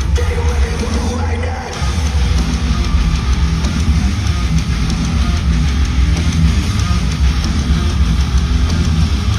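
Live metalcore band playing at full volume: heavy distorted electric guitars, bass and drum kit. The low end drops out briefly just under two seconds in, then the full band comes back in.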